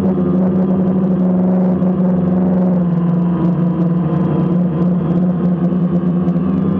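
DJI Phantom quadcopter's motors and propellers buzzing steadily in flight, heard up close from the camera mounted on the drone. It is a loud, even hum with a strong low tone and a ladder of overtones whose pitch drifts slightly as the motor speeds shift.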